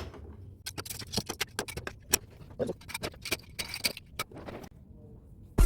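Loose plastic keyboard keys clicking and clattering against each other as they are handled and dropped into a bucket: a quick irregular run of small clicks that stops about four and a half seconds in.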